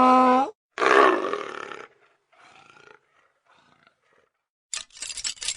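Leopard growl sound effect: a loud, rough growl about a second in that fades over about a second, followed by fainter rasping breaths. A short crackling burst comes near the end.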